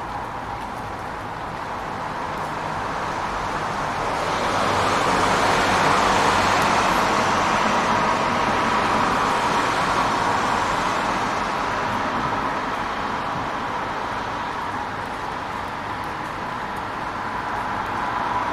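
City rain mixed with traffic: a steady hiss of rain and tyres on wet road. It swells about four seconds in, eases off over the next several seconds, and rises again near the end.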